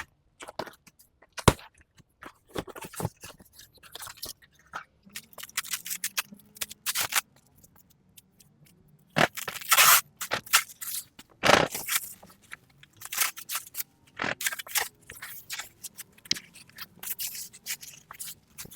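Packaging of an air cooler being handled and opened: irregular scraping, crinkling and rustling of cardboard and plastic, loudest in a few longer bursts about halfway through.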